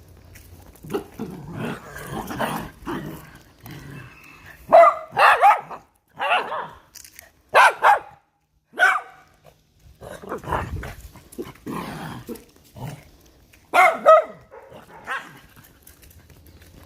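Dog barking in short, sharp bursts, a cluster from about five to nine seconds in and another around fourteen seconds, with lower, rougher dog sounds in between.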